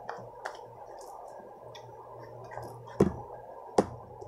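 Homemade glue slime being kneaded and squeezed in the hands, with small wet clicks, then two sharp smacks less than a second apart near the end as the slime is put down on the table and pressed.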